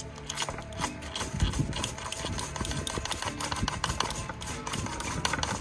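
Background music over repeated rasping strikes of fire-starting flint rods scraped to throw sparks into tinder, heard as many short, irregular clicks and scrapes.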